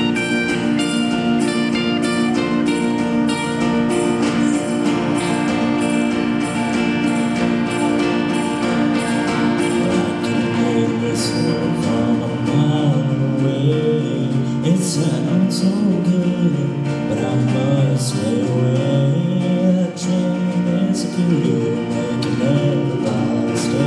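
Live band playing a country song: bass guitar, acoustic and electric guitars and a drum kit with a steady ticking hi-hat beat. An instrumental passage gives way, about halfway through, to a male voice singing.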